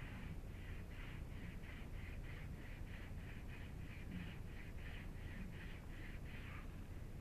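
A cloth rag scrubbed rapidly back and forth across the mesh of a screen-printing screen, wiping ink off it, in a steady rasping rhythm of about four strokes a second that stops near the end.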